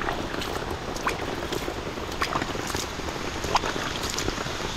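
Steady heavy rain, with water scooped by hand from a basin and splashed over feet in rubber clogs: a few sharp splashes and drips stand out over the rain.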